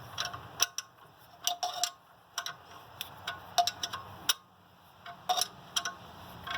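Ratchet wrench clicking in short runs of sharp ticks as the alternator's bottom mounting bolt is tightened down.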